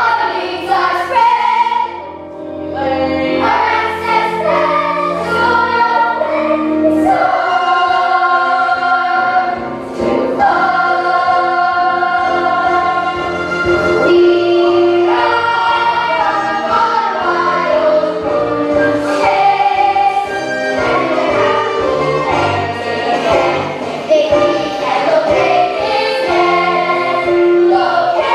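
A group of voices singing a musical-theatre song together in chorus over instrumental accompaniment.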